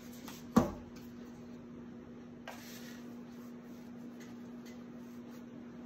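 A hardcover book set down on a table with one sharp thump about half a second in, followed by a few faint handling clicks and a brief rustle over a steady low electrical hum.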